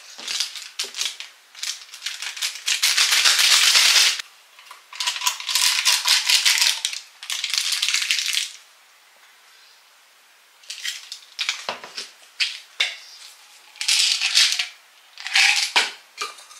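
Supplement tablets and capsules rattling inside plastic pill bottles as they are shaken out into a hand. The shakes come in runs of a second or two with short pauses, and a quiet stretch falls about halfway through, followed by a few clicks and two more short shakes.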